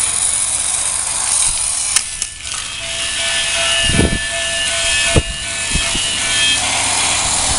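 Battery-powered toy trains running on their tracks: a steady whirring rattle of small motors, gears and wheels. A thin steady whine joins from about three seconds in until near the end, with two low knocks in between.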